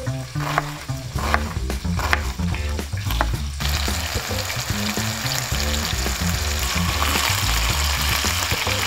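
A kitchen knife chopping onion on a wooden cutting board, a run of sharp knocks. About three and a half seconds in, this gives way to minced-beef patties frying in a hot pan with a steady sizzle.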